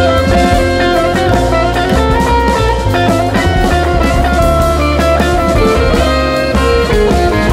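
Instrumental band playing: saxophone and guitar over upright bass and drums, with piano and vibraphone in the ensemble. The music runs loud and even, with the guitar prominent.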